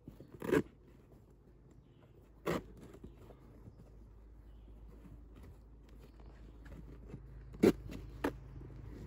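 Knife cutting through a sheet of felt in short, sharp scraping strokes, four of them: one about half a second in, one at two and a half seconds, and two close together near the end. A low steady rumble underneath grows louder in the second half.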